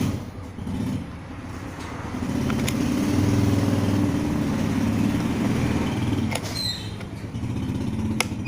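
A motor vehicle's engine running past, a low hum that grows louder about two seconds in and eases off near the end, with a few sharp clicks.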